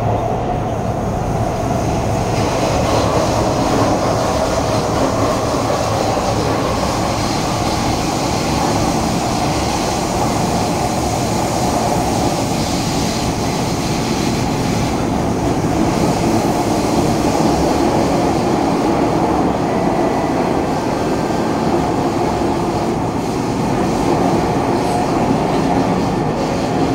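Steady hum and hiss inside the carriage of a Kawasaki Heavy Industries C151 MRT train standing at an underground station platform.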